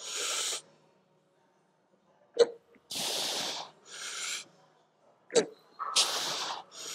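A man breathing hard through a heavy set of shoulder presses: sharp, hissing breaths every second or two, and two short strained grunts, one about two and a half seconds in and one about five and a half seconds in.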